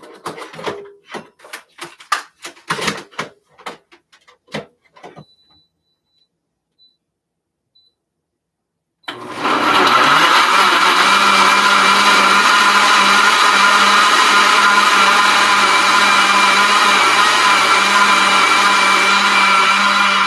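Countertop blender switched on about nine seconds in and running steadily at high speed, blending plantain with almond milk. Before it, a few seconds of clicks and knocks.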